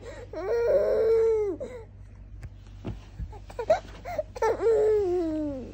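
Baby giving two drawn-out, whiny cries, the second falling in pitch, with short vocal sounds between them. It is a put-on cry, the baby acting up to ask for milk.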